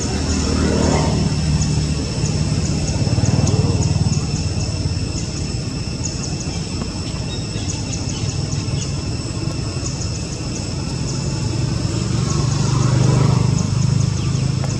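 Motor vehicle engine hum, swelling twice as vehicles pass. Steady high-pitched buzzing with rapid chirping runs underneath.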